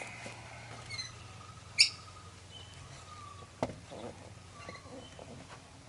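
Metal parts and hand tools clinking while a bucket seat's bracket is being bolted on: one sharp ringing clink about two seconds in and a duller knock a little past the middle. Faint bird chirps sound in the background.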